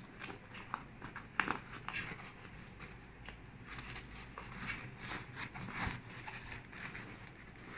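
Nylon MOLLE straps being threaded and pulled through a backpack's webbing: irregular scraping rustles of fabric with small clicks.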